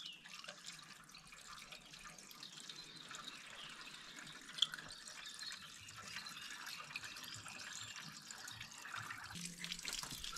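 Water pouring from a plastic jerry can into a tractor's radiator filler neck: a steady splashing trickle that grows slowly louder, with one brief click partway through.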